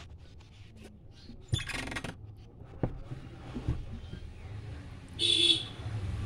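Handling noise from a small keypad mobile phone being worked on: scattered light clicks, a short rasping burst about a second and a half in and a brighter, shorter one near the end.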